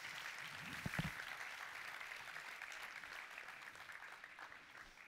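Audience applauding, the clapping dying away near the end. A short low thump about a second in.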